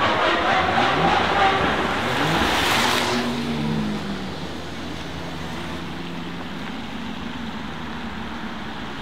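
Lamborghini Aventador LP700-4's V12 with a Capristo exhaust being revved hard, its pitch rising and falling, with a last sharp climb that cuts off about three seconds in. After that it runs at low revs with a lower, steady note as the car rolls slowly closer.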